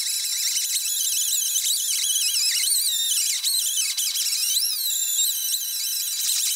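Polycarbide stripping wheel on a power tool grinding against the bare steel of a 1966 Mustang hood, stripping paint and surface rust. It makes a continuous high-pitched screech whose pitch wavers up and down irregularly.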